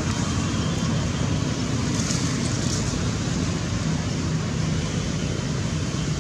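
A steady low background rumble, with a few faint brief high crackles about two to three seconds in.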